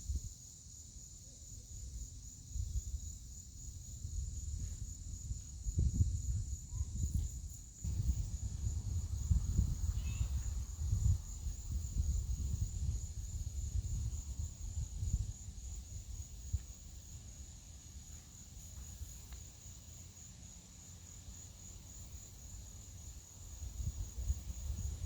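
Gusty wind buffeting the microphone in uneven low rumbles as a storm comes in, over a steady, high, pulsing chorus of insects.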